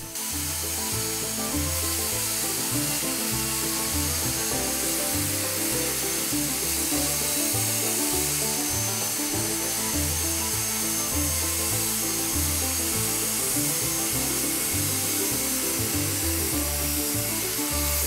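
Circular saw cutting steadily along a laminated timber keel piece on its second, deeper pass, a continuous whine over the hiss of the cut. Background music plays underneath.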